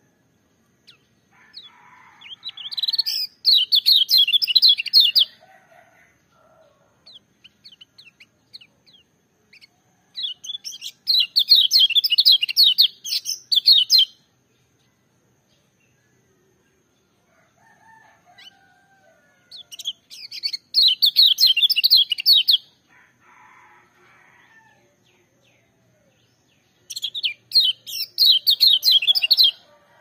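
Kecial kuning white-eye singing: four loud phrases of rapid, high-pitched notes, each about three seconds long, with softer, lower chirps between them.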